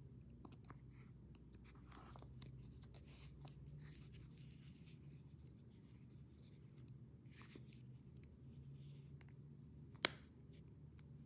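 Faint close-up handling noise: soft rustling and scattered light clicks, with one sharp click about ten seconds in.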